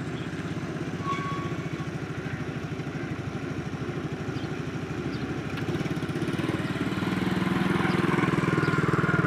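Small motorcycle engine running with an even, rapid beat, then pulling away and passing close by, growing louder near the end.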